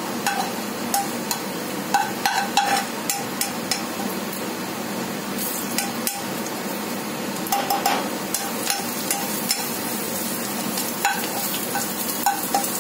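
Cumin seeds sizzling in a little hot oil in a kadai, while a metal spatula stirs them, scraping and clicking against the pan in a few short spells.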